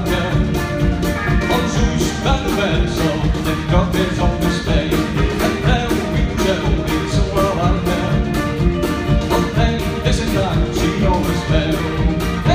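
Live band music with a steady, fast beat, heard from the audience in a hall.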